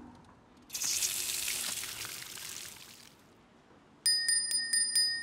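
A hiss of steam for about two and a half seconds, then a small brass hand bell shaken quickly, about six strikes a second, its ring carrying on briefly after the shaking stops.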